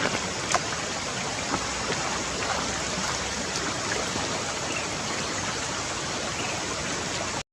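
Steady rushing noise like running water from a stream, with a few faint clicks; it cuts off suddenly near the end.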